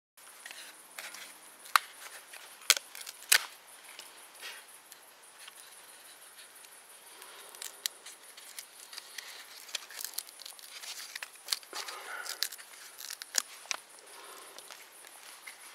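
Small dry twigs snapping and clicking and tinder crinkling as they are broken and packed by hand into a small metal woodgas stove, with several sharp snaps in the first few seconds and lighter clicks and rustles after.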